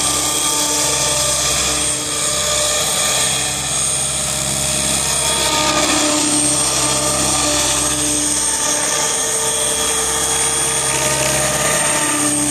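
Electric 700-size RC helicopter (RJX 700) flying low: a steady motor whine and rotor whirr, its pitch shifting slightly as it manoeuvres. A small vibration in the sound is put down by the onlookers to a rotor blade damaged in a crash.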